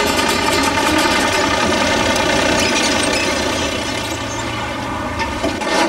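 Motor vehicle running, with a rapid rattle in the first second or so that settles into a steadier low hum.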